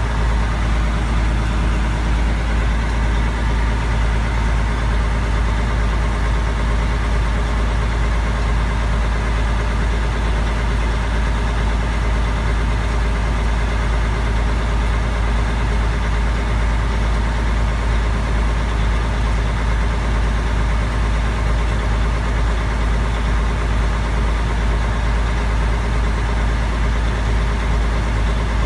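Mack R600 truck's diesel engine idling steadily, a strong even low rumble heard from inside the cab.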